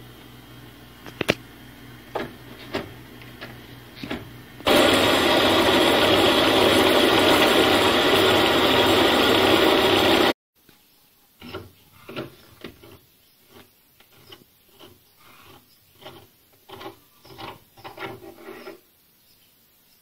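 Homemade metal lathe running. First comes a low hum with a few sharp clicks, then about six seconds of loud, even turning noise as a steel part spins in the chuck. This stops abruptly, and a run of light metal knocks and clinks follows.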